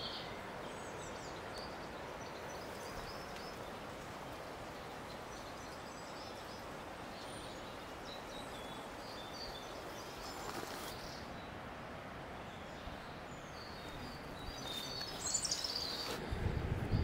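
Outdoor woodland ambience: a steady background hiss with small birds chirping and singing on and off in the distance. A low rumble starts near the end.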